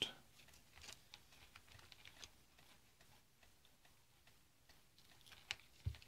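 Faint scattered clicks and taps as a small DC motor and its crocodile-clip leads are handled, with a sharper click and a knock near the end.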